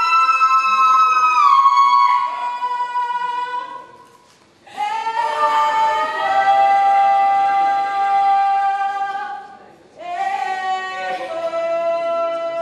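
A high voice singing long, held notes without accompaniment, in three phrases with short breaks about four and a half and ten seconds in.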